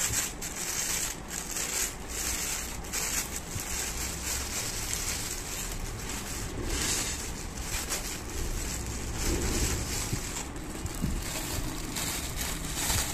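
Clear plastic wrapping crinkling and rustling in short, irregular crackles as hands unwrap a set of bangles from it.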